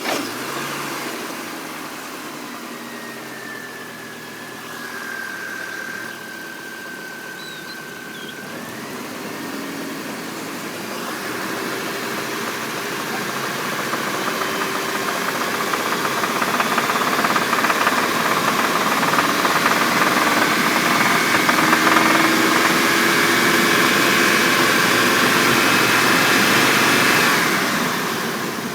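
L52 car engine running just after a start, with the knocking the owner is complaining of. It speeds up and gets louder from about ten seconds in, holds there, then drops back near the end. A high whine runs through the first several seconds.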